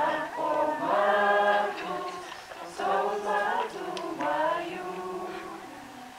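A mixed group of young voices singing a cappella as a choir, in phrases of held notes with a short break about two and a half seconds in.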